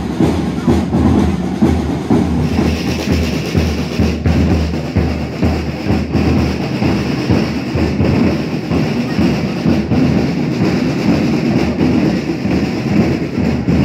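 Drumbeats from a marching band in a torchlit bonfire procession, mixed with the noise of the street crowd. The sound changes abruptly about two and a half seconds in.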